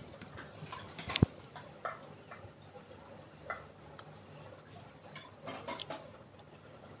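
Battered cauliflower pieces deep-frying in hot oil: quiet, irregular crackling with scattered pops, and one sharp click about a second in.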